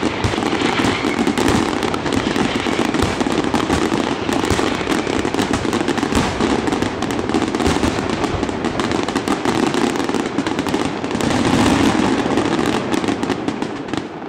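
Fireworks display: a dense, unbroken barrage of aerial shell bursts and crackling, fading away near the end.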